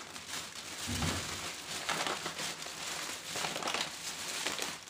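Thin plastic carrier bag crinkling and rustling as hands rummage inside it, with a soft thump about a second in.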